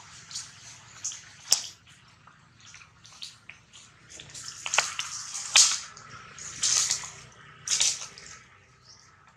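A young monkey drinking from a plastic water bottle: irregular slurps and sloshes of water with crackles of the thin plastic, coming thicker and louder in the second half.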